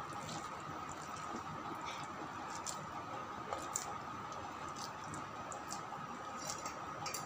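Hands squeezing and shaping a wet mix of grated bottle gourd and gram flour into balls: faint squishing with a few soft clicks, over a steady faint hum.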